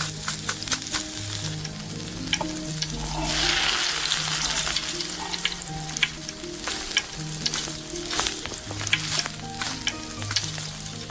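Food frying in hot oil in a tiny miniature pan, sizzling steadily with many light clicks and taps of a small utensil stirring against the pan. The sizzle swells louder for a second or two about three seconds in.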